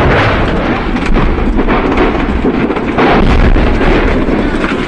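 Loud, continuous rumbling of an ammunition dump exploding and burning, with sharp cracks and crackling through it.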